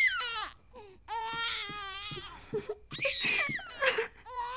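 A cartoon baby's voice: the virtual baby doll cries in a few long, wavering wails.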